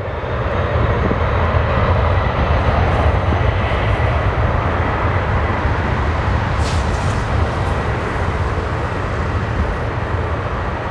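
Jet airliner engines running with a loud, steady roar, heaviest in the low rumble, with a faint steady whine on top.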